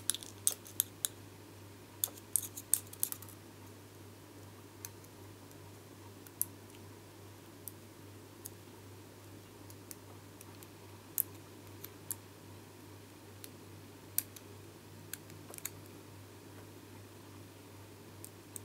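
Light clicks and taps of a thin metal cutting die being handled on a magnetic platform while die-cut card shapes are poked out of it. There is a cluster in the first second, another about two to three seconds in, then scattered single ticks.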